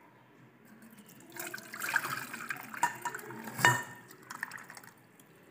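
Dissolved jaggery syrup poured from a steel pan through a fine mesh strainer, splashing into the vessel below. The pour starts about a second in, with a sharp clink near the middle, and tails off towards the end.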